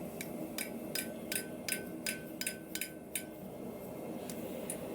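Blacksmith's hammer giving light, ringing taps on a thin bar of hot pure iron on the anvil to knock down the edges of a forged square corner, about three taps a second. The taps stop about three seconds in, with a couple of faint ones near the end.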